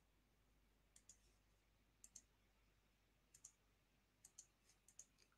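Faint clicks of a computer mouse button, mostly in press-and-release pairs about once a second, coming quicker near the end.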